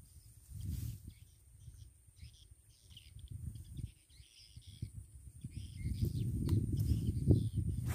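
Birds calling in a series of short chirps, over a low rumbling noise that grows louder in the last two seconds.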